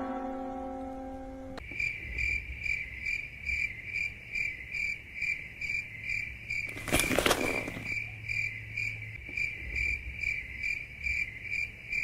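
Cricket-chirping sound effect: a steady trill pulsing about twice a second, the stock gag for an awkward silence. Before it starts, the last notes of a slide-guitar sting ring out and stop. A short, loud burst of noise cuts across it about seven seconds in.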